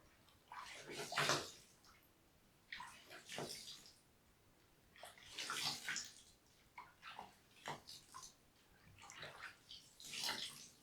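Water splashing and sloshing in about five short bursts, one every couple of seconds, with quiet gaps between them.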